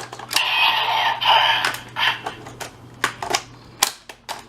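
DX Full Bottle Buster toy weapon: a burst of electronic sound effect from its speaker lasting about two seconds, then scattered sharp plastic clicks as it is handled. A low steady hum underneath stops near the end.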